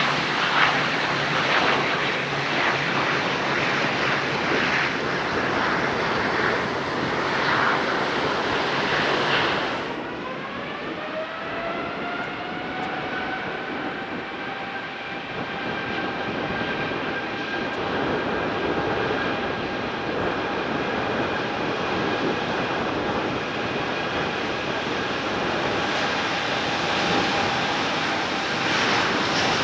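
Boeing 787-9 jet engines: first the rushing noise of the jet passing close by. About ten seconds in comes a whine of several tones that rise for a few seconds and then hold steady as the engines spool up. The rushing noise grows louder again near the end as the aircraft comes closer.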